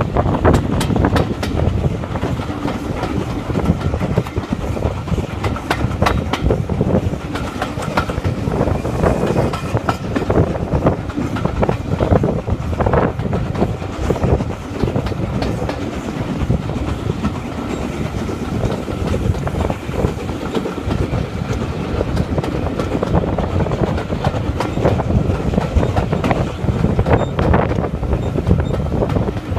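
Railway coaches of a steam-hauled train running on the line, heard from an open carriage window: a steady rumble of wheels on the track with a constant run of clicks over the rail joints.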